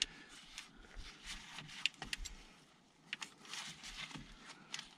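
Irregular light metallic clicks and short scrapes of a wrench working on a transmission oil cooler line fitting as it is tightened.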